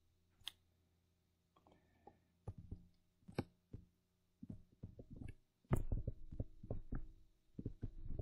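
Stylus tapping and scratching on a tablet screen during handwriting: a scattered run of short, sharp ticks that grows denser and louder in the second half.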